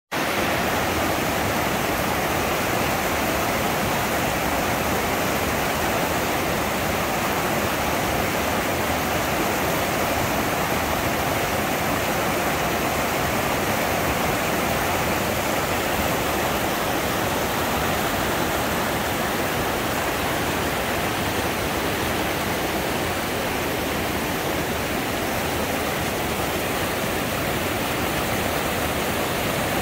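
Mountain creek rapids: fast whitewater pouring over and around rock ledges, a loud, steady rush that never lets up.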